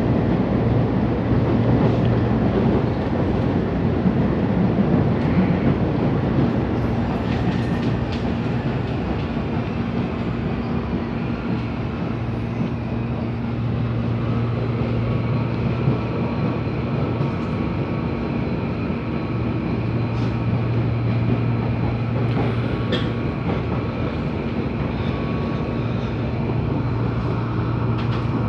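Steady running noise heard inside a CPTM electric suburban train moving at speed, with a steady low hum beneath it.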